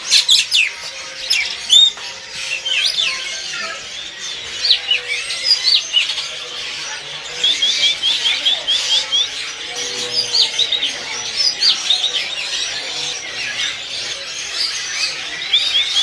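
Many caged songbirds chirping and whistling at once, a dense overlapping chorus of short high calls. One bird gives a fast trill of short repeated notes about halfway through and again near the end.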